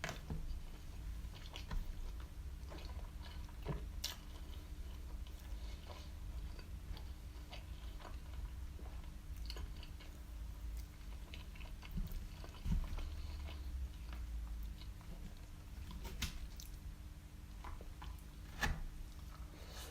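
Close-miked chewing and biting of a halal snack pack of doner kebab meat, cheese and chips, with scattered wet mouth clicks and smacks.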